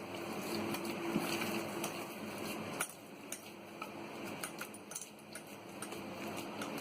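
Minced chicken meatball mixture being stirred together with beaten egg in a bowl: a steady stirring noise with scattered light clicks.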